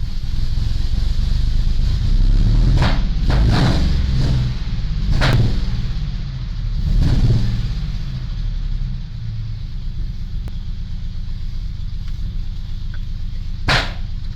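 2005 Ford Mustang 4.0L V6 running roughly, the engine swelling with light throttle blips. Several sharp backfire pops come with it: a cluster in the first half and one loud pop near the end. The car is misfiring and backfiring after an intake and tune change, and it has a known exhaust leak.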